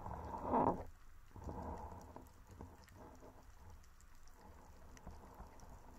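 Underwater ambience picked up by the camera: faint scattered crackling ticks, with a louder rush of water about half a second in and a softer one around one and a half seconds.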